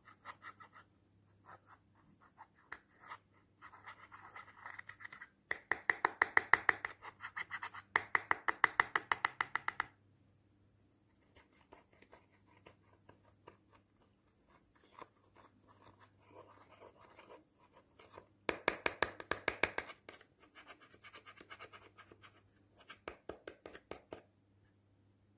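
Metal-tipped dotting tool scraping pressed eyeshadow out of a palette pan in rapid scratching strokes. The scraping comes in bursts, loudest about a quarter of the way in and again a little past the middle.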